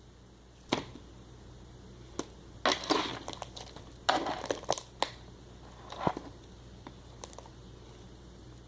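Homemade slime being squeezed and worked by hand, giving scattered sharp pops and crackles in a few quick clusters.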